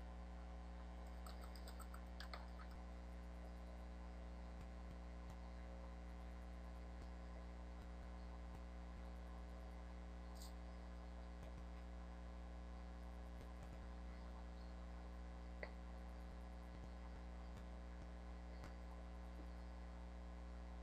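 Faint steady mains hum with a couple of soft computer-mouse clicks, one about two seconds in and one about three-quarters of the way through.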